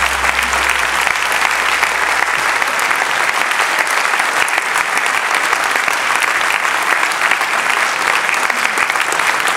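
Audience applauding: dense, steady clapping. A low hum underneath dies away about three seconds in.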